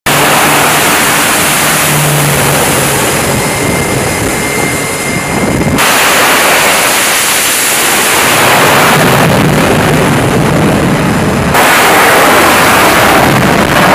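Aircraft engines running loudly on a carrier flight deck, in three clips joined by sudden cuts about 6 and 11.5 seconds in: first an E-2 Hawkeye's turboprops, then an F/A-18's jet engines, then a jet at high power on the catapult, slightly louder.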